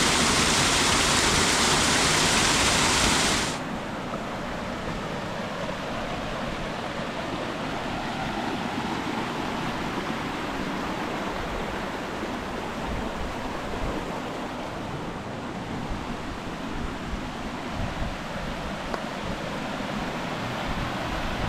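A small creek waterfall rushing and splashing steadily. About three and a half seconds in, the sound drops suddenly to a softer, duller rush.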